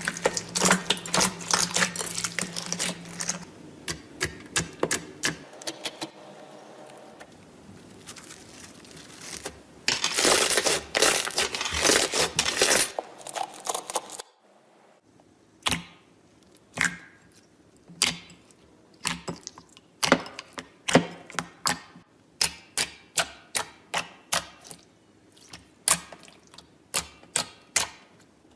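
Slime being pressed, poked and squeezed by hand, making crackling clicks and pops. Dense crackling near the start and again about ten seconds in gives way to separate sharp pops, one or two a second, in the second half.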